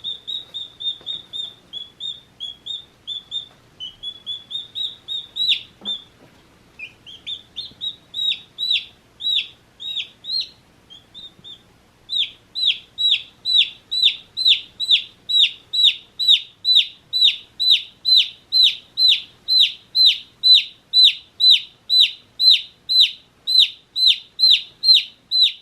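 One-day-old baby chicks peeping: short, high peeps that fall in pitch. They are softer and quicker at first, stop briefly about eleven seconds in, then come loud and regular at about two a second.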